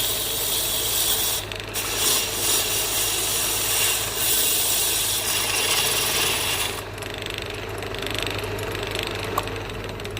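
Wood lathe running, with a turning tool scraping the spinning wood in a rough hiss over the motor's steady hum. About two-thirds of the way through, the cutting eases off and the lathe's hum carries on.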